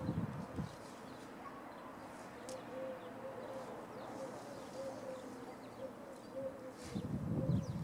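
Outdoor ambience: wind rumbles on the microphone at the start and again near the end. From about two seconds in, a distant animal gives a faint series of short, low cooing notes, about three a second. A few faint high bird chirps are heard as well.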